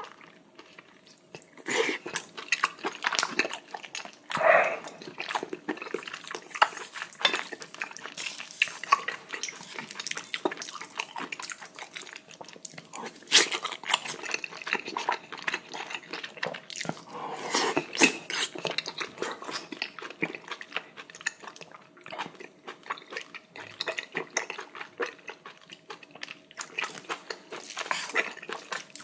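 Close-miked wet chewing and lip-smacking of a person eating rich, fatty braised beef large intestine (daechang) with kimchi. It is a dense run of small squelching clicks and smacks.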